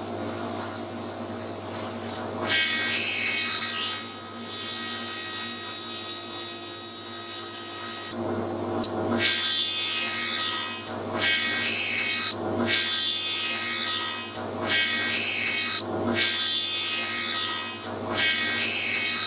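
Small benchtop thickness planer running, planing thin resawn boards down to 3 mm: a long cutting pass in the first half, then six shorter passes with brief pauses between them over the steady motor hum.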